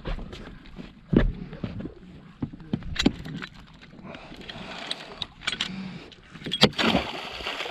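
Knocks and clatter in a small fibreglass boat as the anchor is got out and put over, several sharp thuds, the loudest about a second in, over a steady rush of wind and water.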